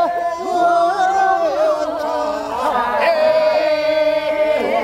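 Korean rice-paddy weeding work song (non-maeneun sori, first weeding) sung by farmers' unaccompanied voices. Several voices hold long, wavering notes together, and a new phrase comes in about three seconds in.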